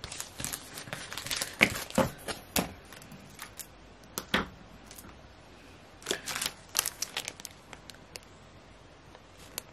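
Clear plastic bags around acrylic charms crinkling as they are handled and laid out, in irregular clusters of short crackles that thin out near the end.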